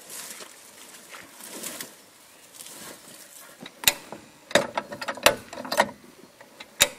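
Sharp metallic clicks from a high-lift rack-and-pin jack being pumped by its handle, its climbing pins catching on the steel rack as it lifts a vehicle. There are about half a dozen clicks, irregularly spaced, starting about four seconds in.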